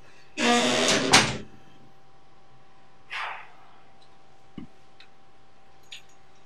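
A hinged room door swinging shut with a loud grating creak, ending in a sharp latch click about a second in. A few faint small knocks follow.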